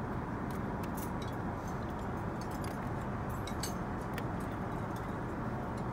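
Steady cabin noise of an Airbus A380 in flight, with small scattered clinks and taps of porcelain dishes and cutlery being set down on a cloth-covered seat table.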